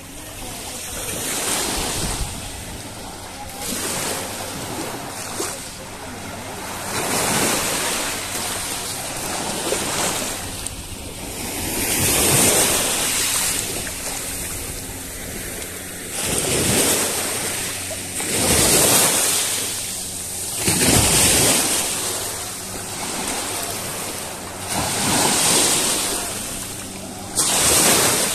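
Sea waves breaking and washing up on the shore, surging and falling back every few seconds.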